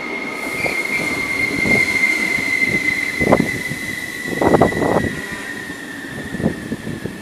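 Trenitalia MDVC and MDVE passenger coaches rolling along the platform as the train arrives. A steady high squeal from the wheels and brakes runs throughout and sags slightly in pitch near the end. A few dull thumps come from the running gear.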